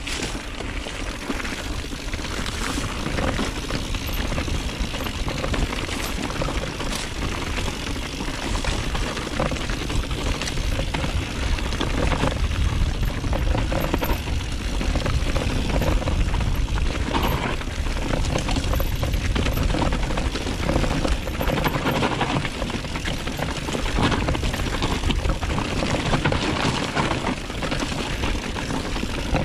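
Wind buffeting the microphone of a mountain biker's camera while riding, with tyre noise and scattered knocks from the trail.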